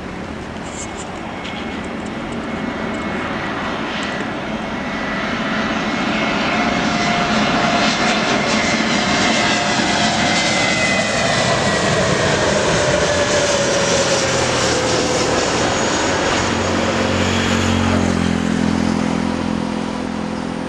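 Airbus A320neo jet on landing approach passing overhead: a loud, steady engine noise with whining tones that fall in pitch as it goes by. Near the end a lower, steady jet-engine drone takes over.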